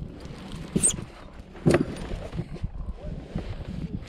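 Wind buffeting the microphone, with a few short knocks and clicks from handling a caught bass and an A-rig lure. The loudest knock comes a little under two seconds in.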